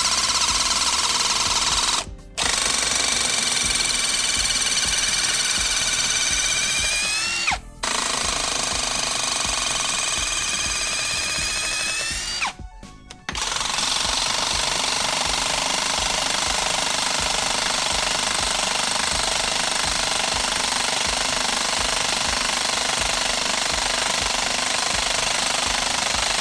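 RIDGID Stealth Force hydraulic pulse impact driver running under load, driving screws into wood in three runs of a few seconds, each ending with a bend in its whining pitch as the trigger is let off. After a short pause it drives a 6-inch lag screw in one long, steady run.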